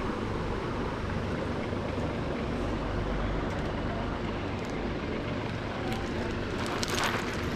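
Steady background noise of a busy market street, a low rumble of traffic, with a brief clicking rattle near the end.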